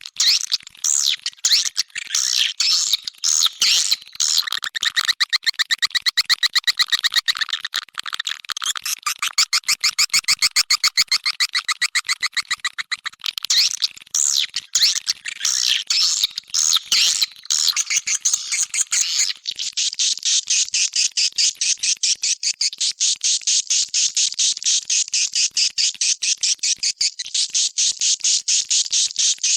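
Swiftlet lure-call track: dense, overlapping twittering chirps of edible-nest swiftlets played as a mixed recording. About two-thirds through it changes to an even, rapid train of repeated chirps.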